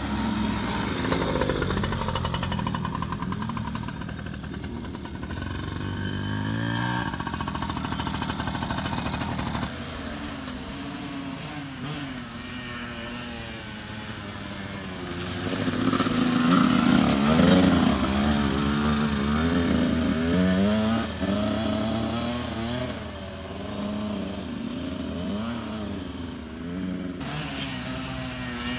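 Small two-stroke dirt bikes, a Yamaha PW80 and an 85cc, running around the trail, their engine pitch rising and falling as the riders throttle on and off. One bike passes close and louder about halfway through.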